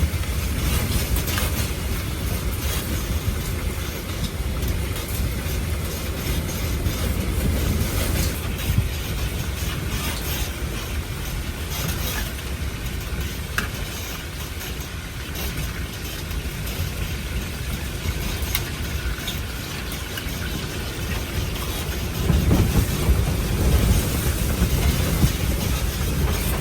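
Blizzard wind blowing hard, a deep rumble with hiss and scattered light ticks, surging louder near the end.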